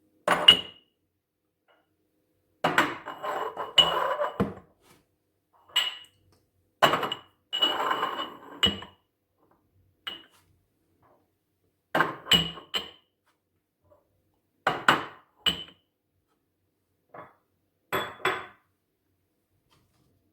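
Dishes and kitchenware being handled and set down in a kitchen cupboard: about nine short bursts of clinks and clatter, some with a brief ring, separated by quiet pauses.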